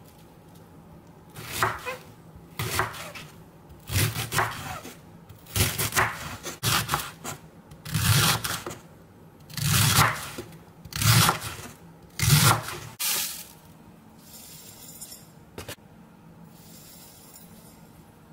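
Knife chopping rhubarb stalks on a wooden cutting board: about a dozen uneven cuts, roughly one a second, stopping about thirteen seconds in.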